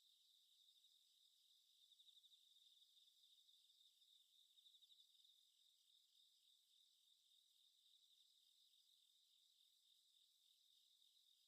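Crickets chirping in a steady, even rhythm of rapid pulses, very faint: a night-time ambience.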